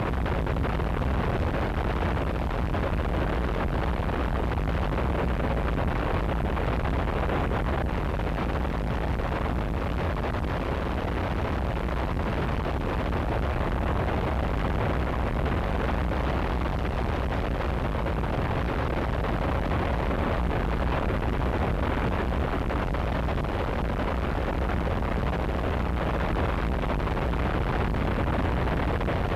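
Harsh noise wall: a thick, unchanging sheet of distorted static with a deep rumble underneath and a muffled top, steady in level, with no rhythm or pitch.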